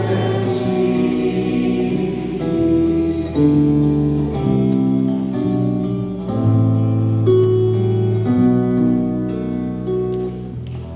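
Slow acoustic guitar music: plucked notes and held chords that change every second or so, easing slightly in loudness near the end.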